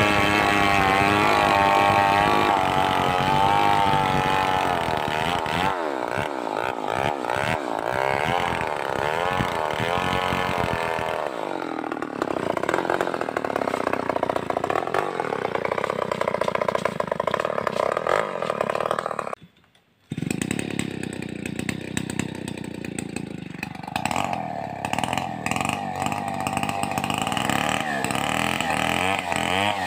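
Stihl 038 two-stroke chainsaw running, its engine pitch rising and falling as it revs and bogs under load in hard coconut wood. It drops out abruptly for about half a second about two-thirds of the way through, then carries on.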